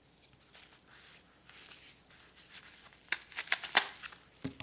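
Padded paper mailer being opened: faint rustling, then a quick run of sharp crinkling and tearing noises about three seconds in.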